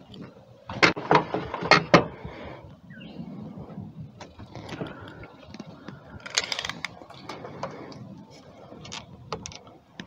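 A pressure-treated 2x6 board being handled and laid across a miter saw's table: a few sharp wooden knocks in the first two seconds, then scattered lighter clicks and clatter.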